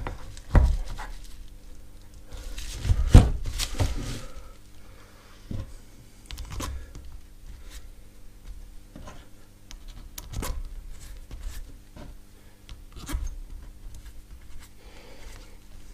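Workshop handling noises: a mobility scooter's DC motor being turned over in the hands over bubble wrap, with scattered knocks, clicks and rustles, the loudest knocks about half a second and three seconds in. A faint steady hum sits underneath.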